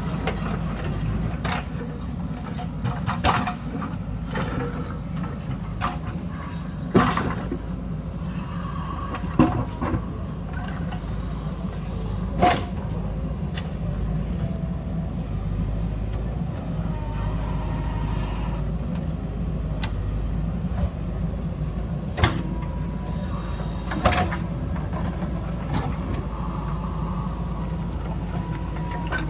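Heavy diesel earthmoving machine running steadily with a low drone, with sharp clanks and knocks every few seconds from its working gear.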